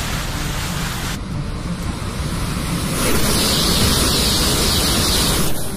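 Steady, loud rushing noise like wind or surf. It changes abruptly about a second in, then grows louder and hissier from about three seconds in until near the end, where it cuts off.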